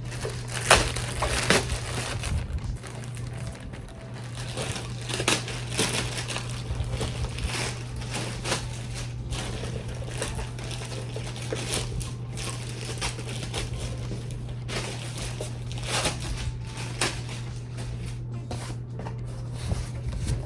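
Plastic packaging crinkling and rustling in irregular bursts as it is handled and opened, over a steady low hum.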